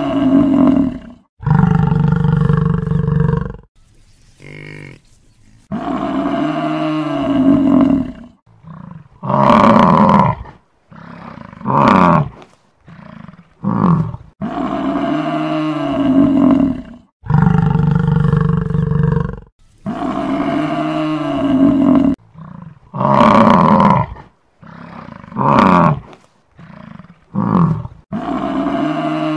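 A buffalo bellowing over and over: long, low calls of about two seconds, mixed with shorter calls, with brief gaps between them. The same sequence of calls repeats about every fifteen seconds.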